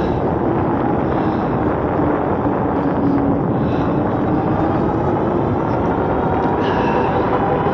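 Steady rush of wind on the microphone and tyre noise from an Eahora Juliet e-bike riding under throttle on pavement, with a faint motor whine that shifts a little in pitch.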